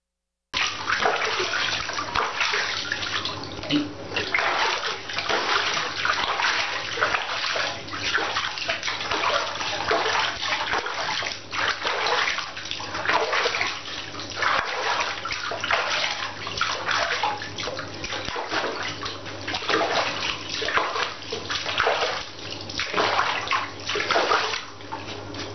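Water splashing and sloshing in a bathtub as hands scoop and rub bathwater over a wet toy poodle, an irregular continuous run of splashes starting about half a second in.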